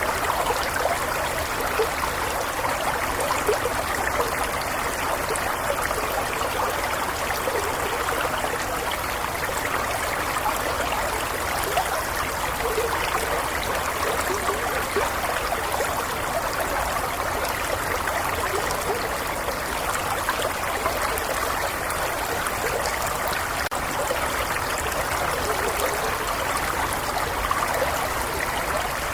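Shallow stream flowing steadily over stones, a continuous burble and trickle of water.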